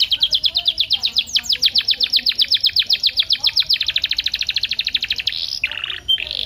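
Domestic canary singing a long rapid trill of repeated high notes, about ten a second, quickening after about four seconds, then breaking into a short lower buzzy phrase near the end.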